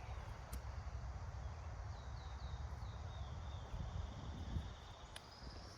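Outdoor woodland ambience: a small songbird sings a quick run of short, falling notes about two seconds in, over a steady low rumble, with a couple of faint clicks.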